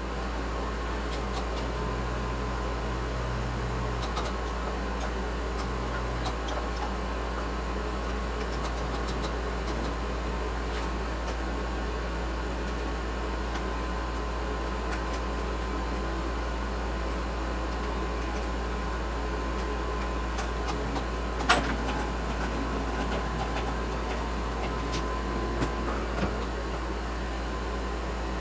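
Steady low mechanical hum, like a fan or small electric motor running, with one sharp click about twenty-one seconds in.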